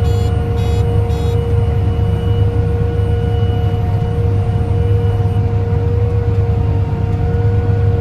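OXBO 8430 sweet corn harvester running at harvesting speed: a steady low machine drone with a constant whine of several steady tones over it. Three short electronic beeps sound in the first second and a half, about half a second apart.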